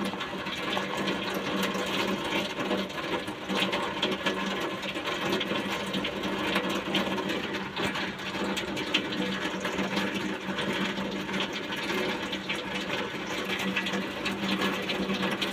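Heavy rain falling on the car, a dense steady patter, with a low steady hum underneath.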